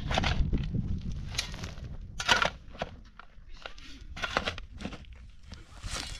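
Steel shovel digging into dry, stony soil: several sharp scraping crunches as the blade bites in, with dirt and stones thrown aside.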